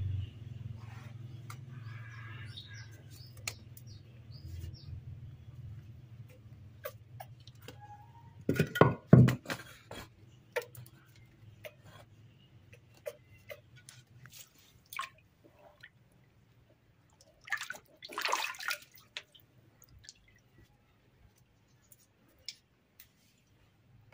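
Water splashing and dripping in a plastic tub as a baby monkey gets into the water and moves about. Two loud bursts of splashing come about nine and about eighteen seconds in, followed by scattered drips. A low hum runs under the first half and fades out.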